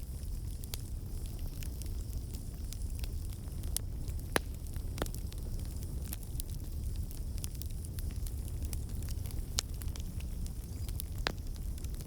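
Bonfire burning: a steady low rumble of flames with irregular sharp crackles and pops of burning wood, a few louder pops scattered through.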